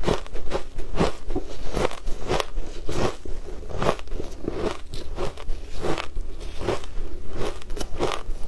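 Compressed shaved ice being bitten and chewed, a steady run of crisp, icy crunches at about two to three a second.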